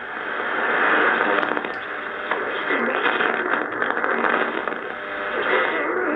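Drake R77 HF receiver's audio: steady shortwave static and hiss as the band is tuned, with faint whistles sliding up and down in pitch as the tuning passes signals.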